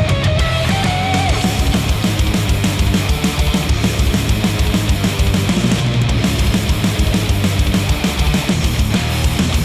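Heavy rock music with fast, driving drums and distorted electric guitar, played back through open-back planar headphones and picked up by microphones at the ear cups.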